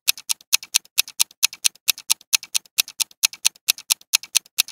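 Clock-like ticking from a countdown-timer sound effect: a sharp, steady tick a little more than twice a second, with softer ticks in between.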